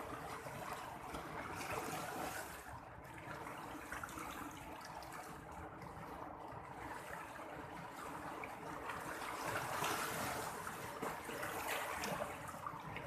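Sea water washing and lapping: a steady rushing wash that swells and eases, loudest about ten seconds in.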